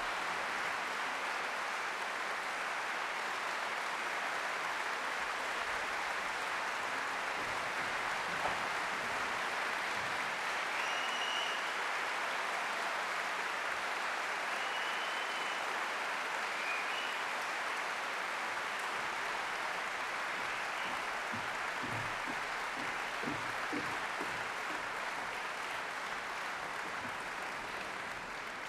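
Large audience applauding steadily, the clapping beginning to die away near the end.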